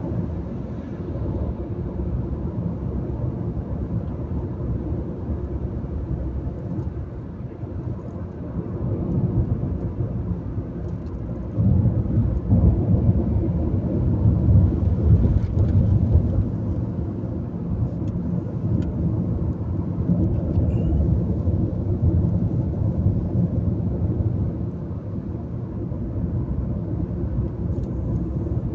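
Steady low rumble of road and engine noise inside a moving car's cabin, its tyres running on a wet highway; the rumble gets louder about twelve seconds in.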